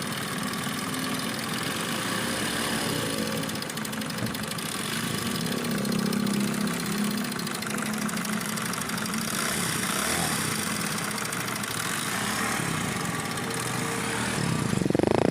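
CD 70 motorcycle's single-cylinder four-stroke engine idling steadily with a fast, even rattle from a loose timing chain, the noise that shows the chain is due for replacement.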